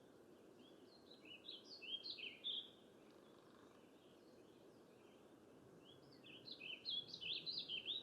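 Woodpecker giving two bouts of its whinny call, each a rapid run of short high notes lasting about a second and a half, over a steady background hiss.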